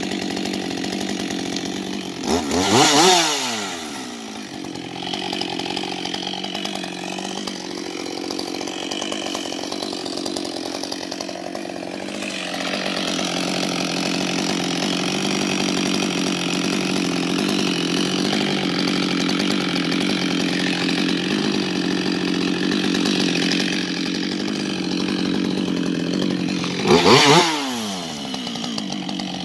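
Husqvarna 560XP two-stroke chainsaw idling steadily, revved briefly twice: once about two seconds in and once near the end, each rev rising in pitch and dropping straight back to idle.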